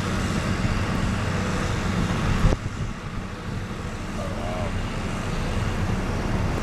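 Vehicle engines running in jammed traffic on a snowy road, a steady low rumble. A single sharp knock about two and a half seconds in, after which the rumble is quieter.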